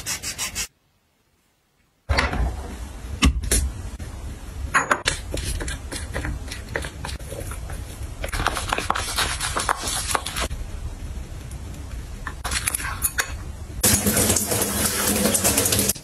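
Close-up handling of small household items: rustling, light rubbing and scraping, with many small clicks and taps. There is a silent gap of about a second near the start, and a denser stretch of rustling near the end.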